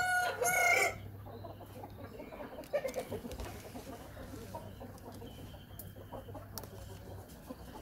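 Chickens clucking, louder in the first second, then faint.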